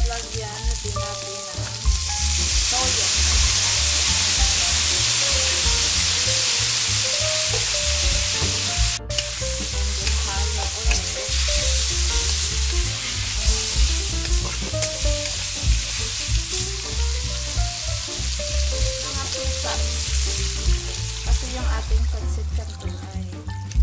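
Beef strips and sliced onions sizzling in a hot wok as they are stir-fried with a wooden spatula. The sizzle turns much louder about two seconds in and eases off toward the end.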